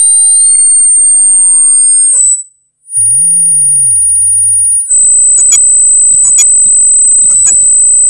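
Audio feedback: a loud, steady, high-pitched squeal with fainter tones gliding down and back up beneath it. It cuts out about two seconds in and returns about a second later over a low wobbling hum, then from about five seconds in holds at a slightly lower pitch with scattered crackles.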